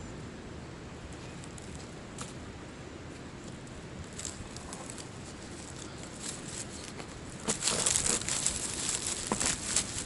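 A person moving and handling gear around a pitched tent, heard as crackly rustling and scuffing. It starts about three-quarters of the way in over a faint outdoor background.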